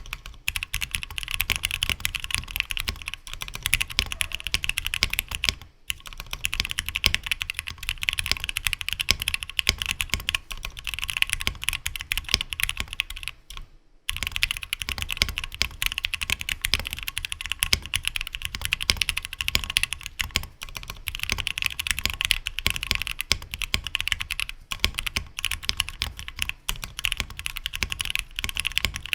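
Continuous typing on a Tofu60 custom mechanical keyboard, o-ring gasket-modded, with lubed and filmed Gateron Black Ink linear switches on a 3D-printed PLA plate and PBT keycaps. There are brief pauses about six seconds in and again about fourteen seconds in.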